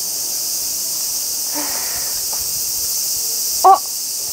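Steady high-pitched chorus of summer cicadas shrilling without a break. Near the end a woman gives one short exclamation, 'ah!'.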